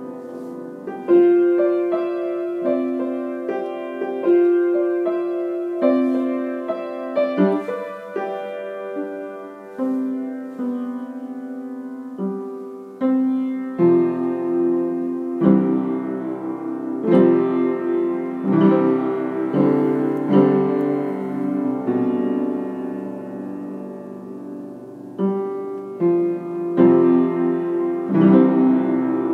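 Solo piano music: an instrumental piece of struck notes and chords, growing fuller with lower bass notes from about halfway through.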